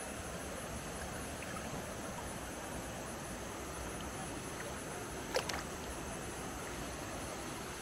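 Steady rush of flowing river water, with a brief sharp double click about five seconds in.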